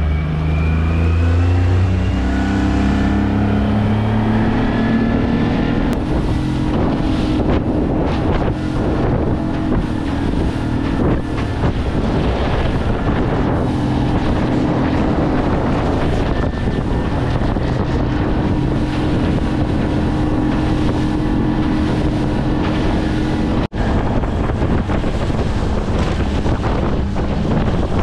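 Yamaha 40 hp tiller outboard motor revving up as the throttle is opened, its pitch rising over the first few seconds, then running steadily at cruising speed. Wind on the microphone and the hull knocking over chop sound over the engine.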